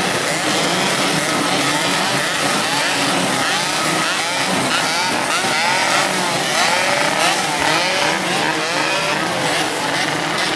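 Many two-stroke motorcycle engines revving at once, their throttles blipped again and again so the revs rise and fall in overlapping waves, busiest in the middle of the stretch.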